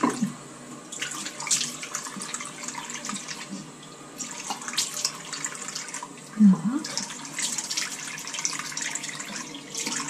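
Water running from a bathtub tap while hands scoop and splash it onto a face, rinsing off foaming face wash, with irregular splashes throughout. A brief vocal sound comes about six and a half seconds in.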